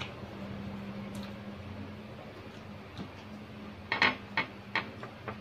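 A quick run of about five sharp clicks and taps against a ceramic bowl, about four seconds in, as a piece of boiled banana is dipped and pushed through ginamos, fermented fish paste. A low steady hum runs underneath.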